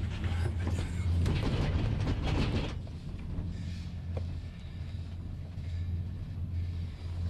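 Gondola lift cabin riding along its cable: a steady low hum with a rushing noise over it, louder for the first three seconds or so.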